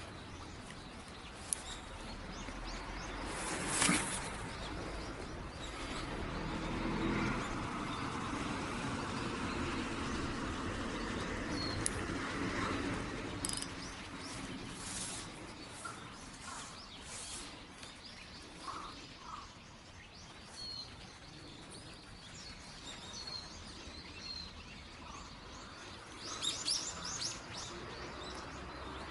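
Outdoor ambience with small birds chirping now and then, over a soft steady background noise. A brief louder scrape about four seconds in, with a louder run of chirps near the end.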